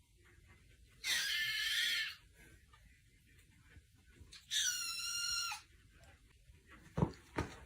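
An animal giving two high-pitched cries, each about a second long, a few seconds apart, followed by a few short knocks near the end.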